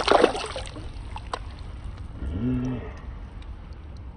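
Stream water splashing around a hand as a released cherry salmon darts away, a sharp burst of splashing in the first second, then the shallow stream running steadily with a few small drips. About two and a half seconds in there is a short low hum.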